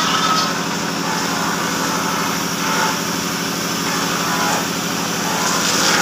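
Handheld electric plunge router running steadily, its bit cutting along the edge of a wooden rail.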